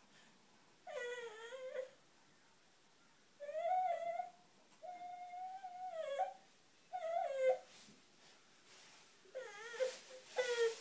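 Baby whimpering and fussing in a string of about five high-pitched whiny calls with short pauses between them. One call near the middle is held for over a second.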